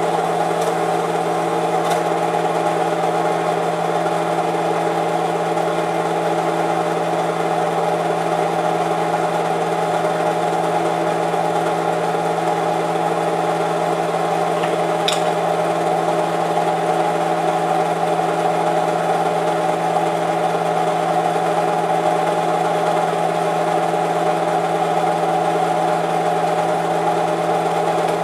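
Home-movie film projector running: a steady mechanical hum and whirr, with a faint click about two seconds in and another about halfway through.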